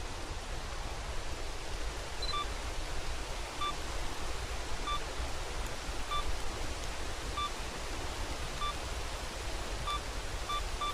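Camera self-timer beeping, short even beeps about once every 1.25 seconds that quicken near the end as the countdown runs out, over a steady hiss of rain.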